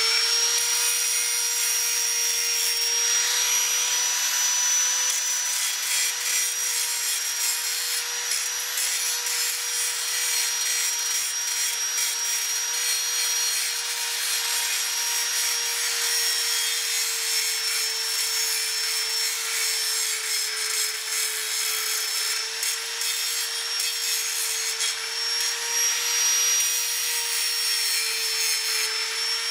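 Angle grinder running steadily with its disc against the cut end of a metal tube, grinding the sharp edge smooth. A steady motor whine carries a gritty grinding hiss over it.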